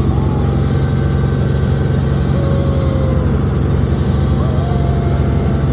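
Helicopter engine and rotor running steadily and loudly inside the cabin on takeoff, a constant low drone with a dense rumble beneath.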